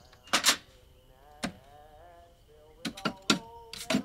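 Metal clunks and clicks from an old Coca-Cola vending machine as a glass bottle is handled and levered against the machine's built-in bottle opener. The loudest clunk comes about half a second in, and a quick run of clicks comes near the end.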